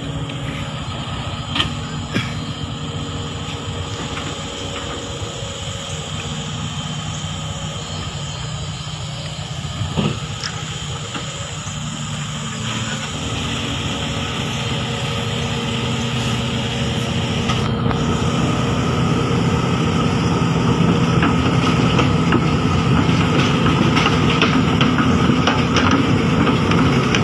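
Heavy diesel engine of the excavator-hauling lowboy truck or its loaded excavator running steadily, growing louder in the second half, with a few short knocks near the start and one about ten seconds in.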